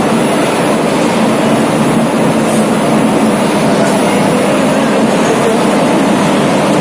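Indian Railways electric locomotive slowly hauling a passenger rake into the platform, with a steady mechanical hum from its motors and blowers that carries a few held low tones.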